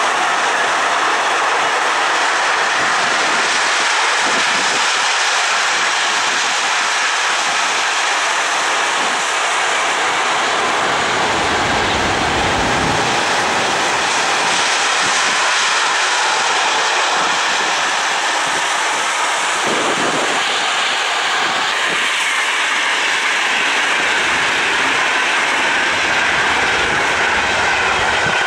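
An intermodal freight train of pocket wagons carrying truck trailers and containers rolls past at speed, a loud, steady rushing of wheels on rail.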